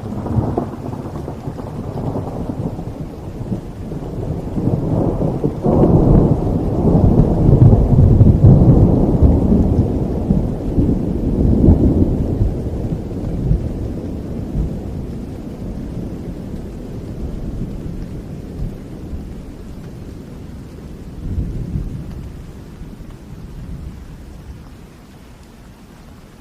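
A long roll of thunder over steady rain. It breaks in suddenly, swells with a few sharper crashes to its loudest around the middle, then rumbles away and fades over the last few seconds, leaving the rain.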